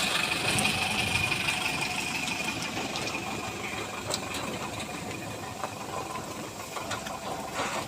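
Diesel engine of a heavy work vehicle running with a knocking rattle, growing slowly fainter.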